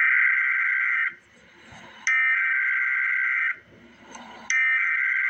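Emergency Alert System SAME header: bursts of digital data tone, each about a second and a half long with about a second's pause between. One ends about a second in, a second runs whole, and a third starts near the end. These repeated bursts are the coded header that opens an alert.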